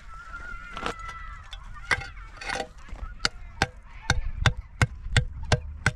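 Sharp knocks of a stone striking a hollow concrete block, a few at first and then a steady tapping about three times a second from about halfway in, as the block is tapped down into place.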